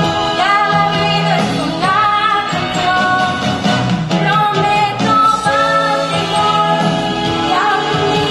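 Music with singing: a song playing steadily, the sung line gliding between held notes.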